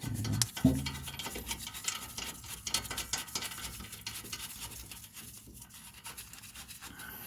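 Small, irregular metallic clicks and scrapes of brake parts and bolts being handled while a caliper bracket's bolts are started by hand, fading toward the end.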